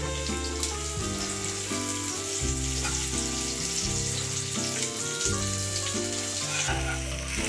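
Sliced onions sizzling in hot oil in a frying pan, with a steady hiss. Under it runs background music of held notes that change about once a second.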